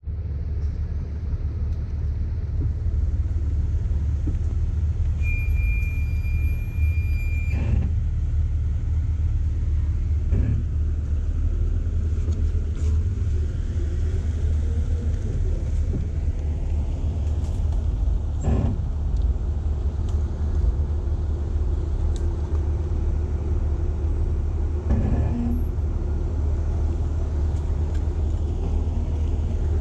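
Steady low engine and drivetrain rumble inside an off-road vehicle's cabin as it crawls over a rough dirt trail, with a few short knocks from bumps in the track. A steady high electronic beep sounds for about two seconds, some five seconds in.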